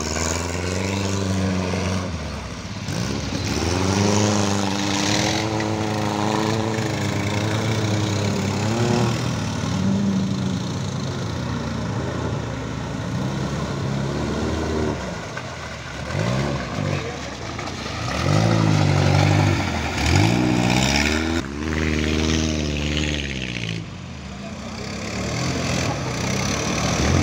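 A Volkswagen Baja Bug's engine revving up and down several times as it drives through muddy water, with splashing. Toward the end an ATV drives through the water as well.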